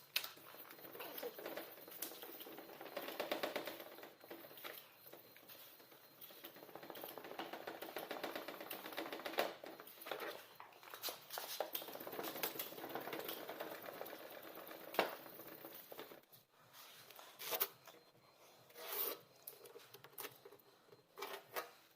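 Hands rubbing and scraping at a car headlight's plastic lens, with a few short sharp rasps, the clearest in the second half.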